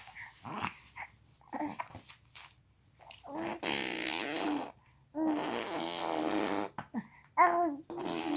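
Baby vocalizing: a few short snuffles and breaths, then two drawn-out wavering voiced sounds of about a second and a half each, and a shorter one near the end.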